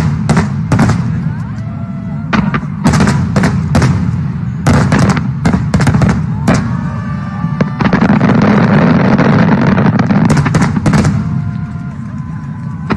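Fireworks display: aerial shells bursting in quick succession, many sharp bangs over a continuous low rumble. About eight seconds in, the bursts pile into a dense barrage that lasts roughly three seconds.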